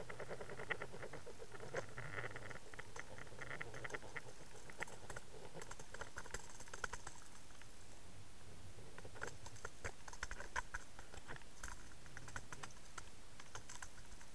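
Irregular clicking and crackling picked up underwater by a camera towed behind a trolled crankbait, over a low steady rush of water flow. The clicks come in busy clusters, thinning out in the middle and picking up again about two-thirds of the way through.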